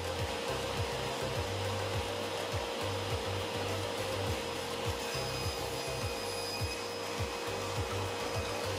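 Table saw running with a dado blade, cutting away the waste on a cherry leg's tenon; the saw's steady whine and cutting noise last throughout. Background music with a steady bass beat plays underneath.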